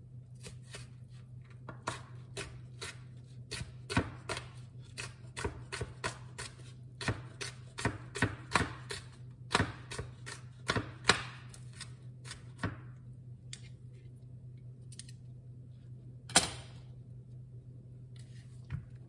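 Knife chopping cucumber on a wooden cutting board: a run of quick, even chops about two a second that stops after some eleven seconds, then one more sharp chop a few seconds later.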